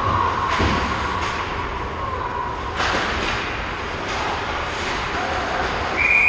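Ice hockey play in an echoing arena rink: a few sharp stick, puck or board knocks over a steady rink din. A single held tone runs through the first two and a half seconds, and a higher one starts near the end.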